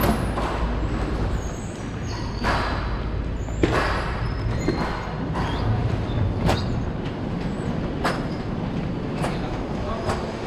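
Train running on the tracks: a steady low rumble with irregular sharp clacks about once a second.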